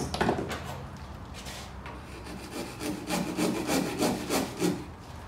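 A handsaw's teeth scraping back and forth across soft spruce, used like a rasp to straighten the bottom of a notch: short, even strokes about three a second from about halfway in. A brief knock near the start.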